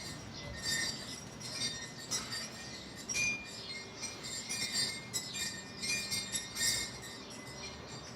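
Light, high-pitched tinkling and clinking, several short ringing chinks every second at irregular intervals.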